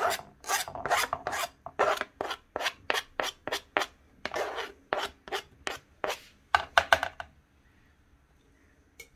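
Kitchen knife scraping chopped parsley off a plastic cutting board into a salad bowl: quick short scrapes, about three a second, stopping about seven seconds in.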